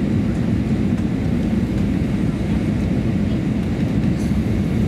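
Steady cabin noise inside an Airbus A321-200 airliner on approach to land: a low, even rumble of engines and airflow.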